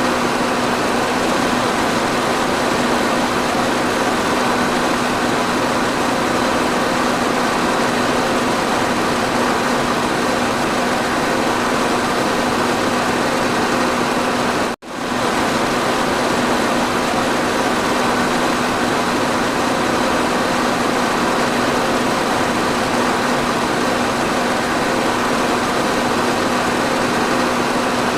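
Electric fan running steadily: an even rushing of air with a constant low hum from the motor. The sound cuts out for an instant about halfway through, then carries on unchanged.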